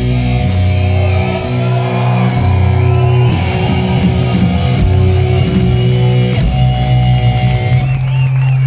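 Live rock band playing loud through a PA: distorted electric guitar, bass and drums with cymbal crashes, then about two-thirds through the band holds one long low chord that rings out to close the song.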